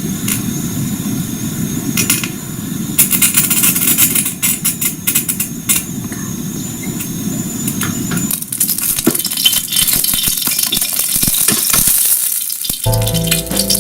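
Kitchen cooking sounds: a steady low rumble with frequent sharp clicks and clinks of utensils against cookware, the clinking growing busier after about eight seconds. Music starts about a second before the end.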